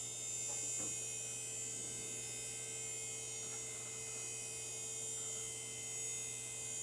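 Power Macintosh 8100 computer running as it boots: a steady electrical hum and fan noise with a set of faint high whining tones, unchanging throughout.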